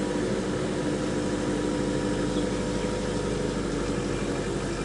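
Car engine running steadily, heard from inside the car.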